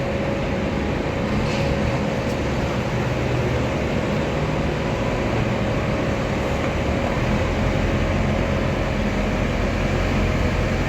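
Heavy diesel engine running steadily, a little louder in the second half.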